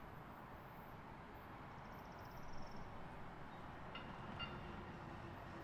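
Faint steady rumble of an approaching Link light rail train, with a short high pulsing trill about two seconds in and two light clicks near the end.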